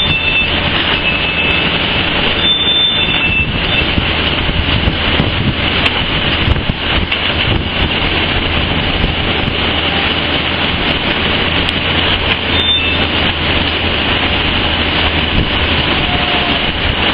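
Steady, loud rushing noise from a rail car of red-hot material giving off dense steam, with a low steady hum underneath.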